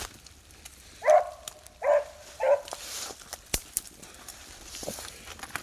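Beagles barking in three short yelps, about a second in, near two seconds and at two and a half seconds, as hounds give voice working a rabbit track.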